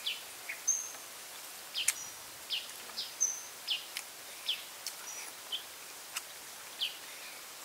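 Outdoor ambience: a bird repeating short, falling chirps about once or twice a second over a steady high hiss, with a few sharp clicks.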